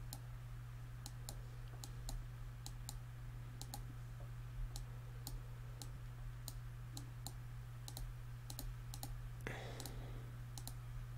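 Computer mouse clicking steadily while painting brush strokes in Photoshop. The clicks come in quick press-and-release pairs, a little more than once a second, faint over a steady low electrical hum.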